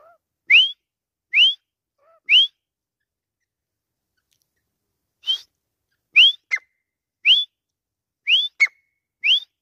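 Grey francolin calling: a series of loud, short, rising whistled notes about one a second. Three notes come, then a pause of nearly three seconds, then five more, two of them closely followed by a short, sharp note.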